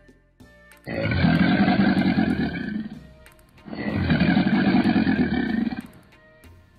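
Crocodile bellowing: two long, low, rough calls of about two seconds each, with a short pause between them.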